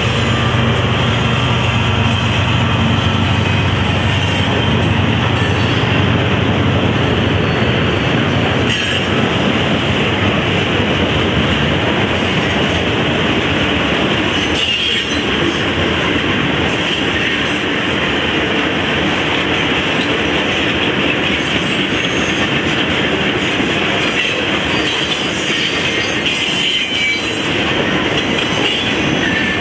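Freight cars of a CSX manifest train rolling past at close range: a steady rumble and rattle of steel wheels on rail. A diesel locomotive's engine drone fades out in the first several seconds.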